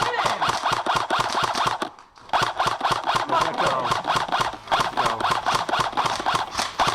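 Airsoft gun firing long full-auto bursts, a rapid rattle of about a dozen or more shots a second, with a short break about two seconds in.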